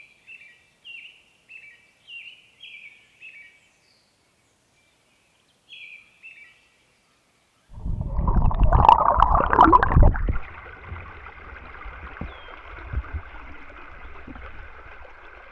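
A bird repeats a short falling call about seven times, then twice more after a pause. About eight seconds in, a loud rumbling noise lasts for two seconds and then settles into a steady rush of flowing river water.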